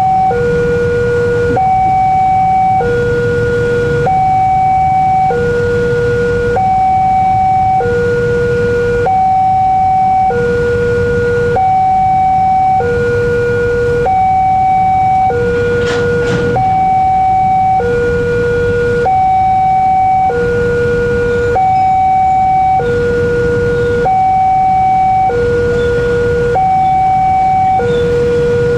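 Railway level-crossing warning alarm sounding its two-tone signal, a higher and a lower tone of just over a second each, alternating over and over, with a low rumble underneath.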